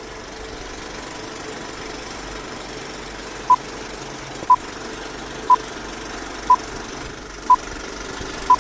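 Old-style film-leader countdown sound effect: a steady film-projector clatter and hiss, with six short beeps, one a second, starting about three and a half seconds in, one for each number counting down.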